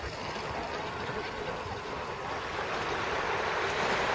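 Small sea waves washing at the shoreline, a steady rush that swells toward the end.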